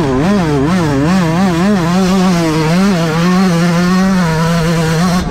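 Yamaha YZ125 single-cylinder two-stroke motocross engine at high revs, heard from on board the bike. Its pitch wavers quickly up and down several times a second, then holds steadier near the end.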